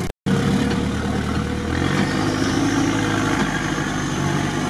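A vehicle engine running, its speed rising about two seconds in.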